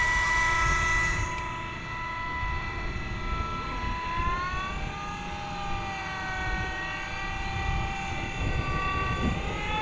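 Model jet's small turbine engine being spun up during its start sequence. It gives a whine that holds steady, sags about halfway through and climbs again near the end, the ignition stage just before the fuel burner takes over.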